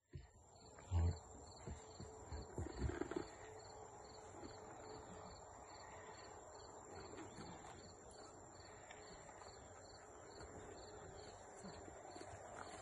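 Insects chirping in an even rhythm, about two pulses a second, over a steady high tone. A few dull thumps and knocks fall in the first three seconds, the loudest about a second in, while a rider mounts a saddled horse from a plastic mounting block.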